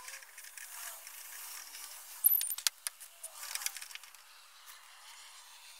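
Metal clinks and light rattling of a hand tool against a new inner tie rod as it is screwed into the steering rack, with a cluster of sharp clicks about two to four seconds in.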